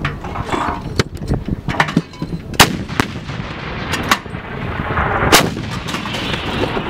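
Towed 122 mm D-30 howitzers firing: several sharp blasts, the loudest about two and a half and five seconds in, the second followed by a rolling rumble.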